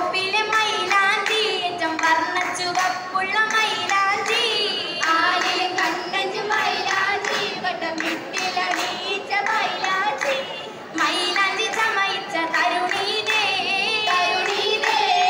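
A group of girls singing a Mappila song in unison with rhythmic hand-clapping, the sung accompaniment of an Oppana dance.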